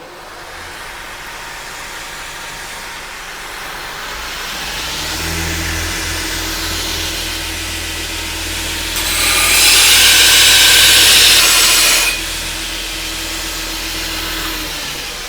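Belt grinder running with a coarse 36-grit belt while a steel axe head is ground against it to remove a chip from the edge. The sound builds over the first few seconds and holds steady. About nine seconds in, the grinding turns much louder and hissier for about three seconds, then drops back.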